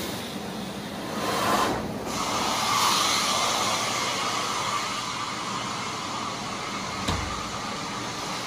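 Carpet-cleaning extraction machine's vacuum running steadily, with a brief dip about two seconds in and a single knock about seven seconds in.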